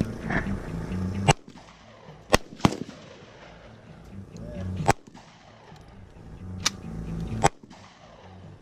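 Six gunshots fired at an uneven pace, two of them close together about two and a half seconds in, over a low rumble.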